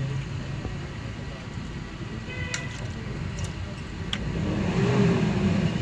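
Steady low engine hum of a motor vehicle running nearby, swelling louder with a pitch that rises and falls about four to five seconds in as a vehicle passes. A couple of light metallic clicks sound in between.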